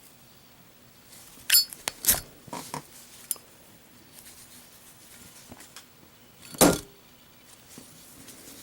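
Brass Zippo lighter with a steel insert: a quick series of metallic clicks and clinks as the lid is flicked open and the flint wheel struck, about a second and a half to three seconds in, then a single loud thud near seven seconds as the lit lighter is dropped in a drop test.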